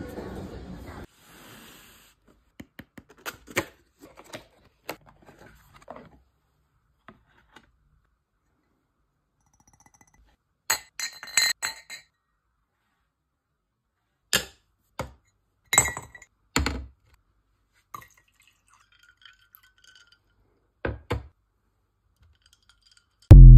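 Recycled glass tumblers clinking and knocking as they are handled and set down, in scattered clinks and small clusters. A loud deep thud with a short ringing tone comes at the very end.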